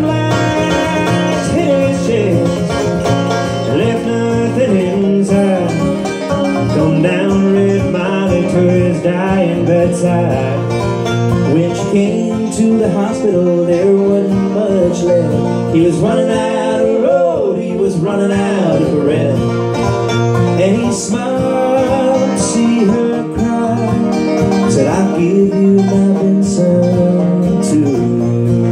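Acoustic guitar and banjo playing a bluegrass-style tune together live, the banjo picking quick notes over the strummed guitar.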